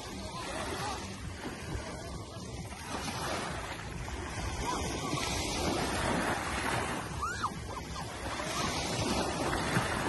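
Small waves breaking and washing up a sandy beach, the surf swelling louder every few seconds as each wave comes in.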